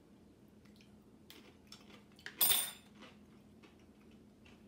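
A metal fork clinking and scraping on a small plate while a piece of kimchi cucumber is picked up, in light scattered taps, with one louder, short noise about two and a half seconds in.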